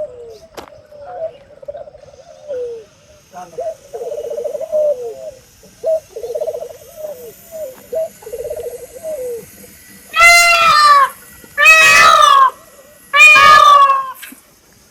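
Animal calls: a run of low, repeated cooing phrases, then three loud, drawn-out calls about a second each, each dropping in pitch at its end.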